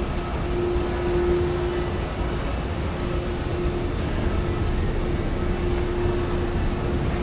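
Steady ambient rumble with a faint hum that comes and goes.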